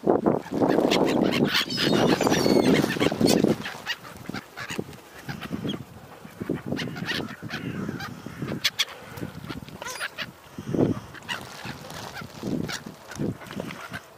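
Waterfowl calling, with many short honking calls. A loud rushing noise fills the first three seconds or so, then the calls go on more quietly.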